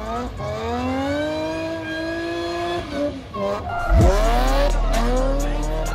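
Supercharged Nissan G35's 3.5-litre V6 revving high through a drift: the engine note rises, holds, then drops, over squealing tyres. About four seconds in, the heavy bass of a hip-hop beat comes in and is the loudest sound.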